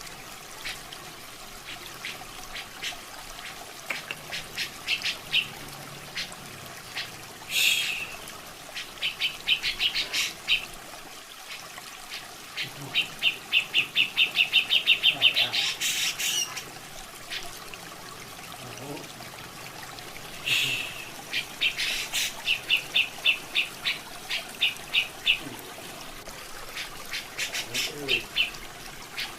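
Grey-cheeked bulbul (cucak jenggot) calling in several runs of rapid, evenly spaced short notes, with a few louder harsh notes between them. A steady trickle of running water sits under the calls.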